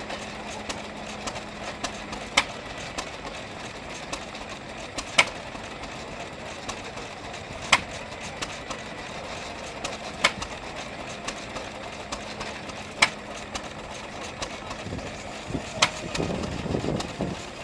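Vintage single-cylinder stationary engine with a tank-cooled cylinder running slowly, firing one sharp bang about every two and a half seconds, the pattern of a hit-and-miss engine ticking over without load. Near the end a louder stretch of other machinery comes in.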